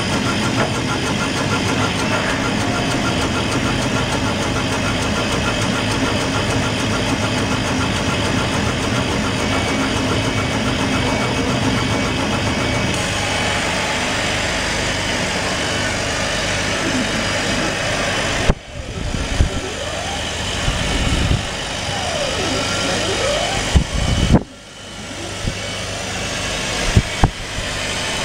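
AbleTec ABJ6040 laser engraving and cutting machine running a cutting job: a steady mechanical rush of its fans and air supply. In the second half, motor whines rise and fall in pitch as the head traces curves, with a few sharp clicks.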